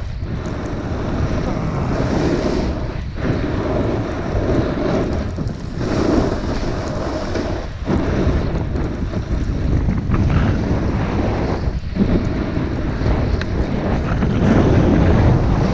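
Wind rushing over the microphone of a body-worn camera on a fast downhill run, mixed with the hiss of snow sliding under the rider. The noise is steady, with brief dips every few seconds.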